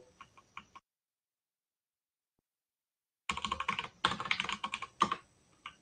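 Typing on a computer keyboard: a few light keystrokes at first, a pause, then a quick run of keystrokes from about three seconds in.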